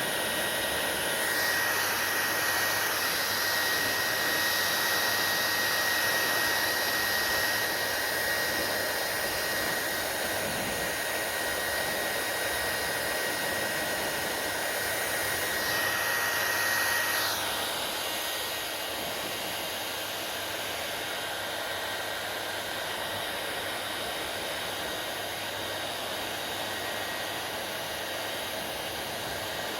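Hair dryer running steadily with a constant airy rush. A thin high whine runs over it until about halfway through, then the sound shifts and gets a little quieter.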